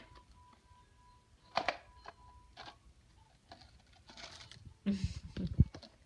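Clear plastic container and plastic tiaras being handled: scattered clicks and rustles, then a cluster of knocks near the end.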